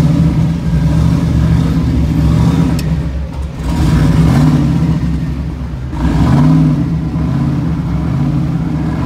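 Drift car's engine running loudly, heard from inside the cabin, with the throttle blipped a few times so the pitch swells and falls back.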